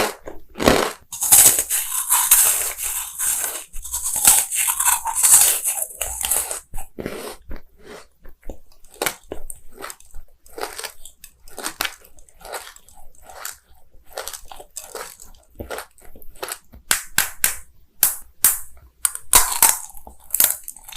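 Eating sounds: crunchy bites and chewing, with a dense run of crackly crunching in the first few seconds, then many separate short crunches.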